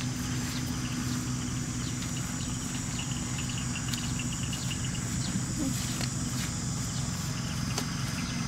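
Insects buzzing steadily in a wet grassy field, with a run of quick chirps in the middle and a few sharp clicks over a low steady hum.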